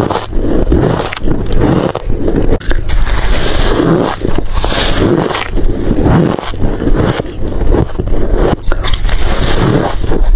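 Close-miked chewing and crunching of a mouthful of freezer frost, soft packed white ice crystals crushed between the teeth in continuous, irregular crunches.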